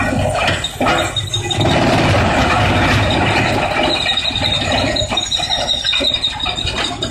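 Large industrial wood crusher running and grinding wood, a loud, dense mechanical noise; a high, steady squealing tone joins in about four seconds in.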